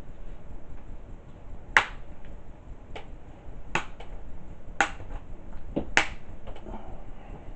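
Plastic screen bezel of an HP ProBook 650 G1 laptop snapping back onto the lid clip by clip: four sharp snaps one to two seconds apart, with fainter clicks between.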